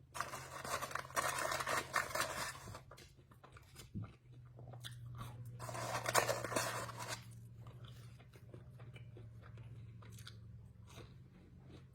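A person chewing and crunching food close to the microphone, in bursts about a second in and again around five to seven seconds, over a steady low hum.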